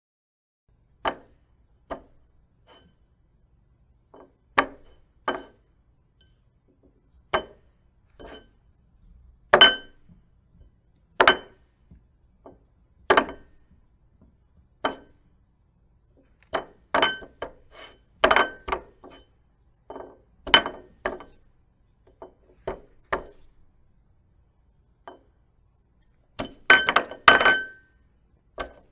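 Plates clinking and knocking against one another: irregular sharp clinks, each with a short ring, some much louder than others, with a quick run of several clinks near the end.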